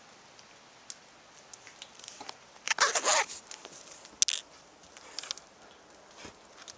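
A dog scuffling about: scattered clicks and scrapes, a louder rasping rustle about three seconds in, and a sharp click just after four seconds.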